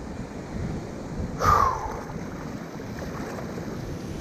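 Fast river water rushing and splashing around a sit-on-top kayak as it runs a small rapid. About a second and a half in there is a brief cry that falls in pitch.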